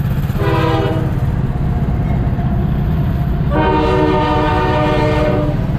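Two blasts of a vehicle horn, a short one about half a second in and a longer one of nearly two seconds, over a go-kart engine running loudly throughout.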